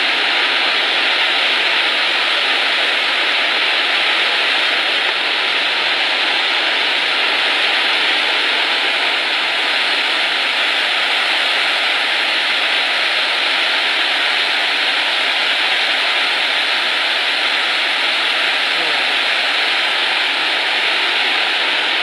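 Steady, loud rush of a waterfall pouring down into a ravine, unchanging throughout.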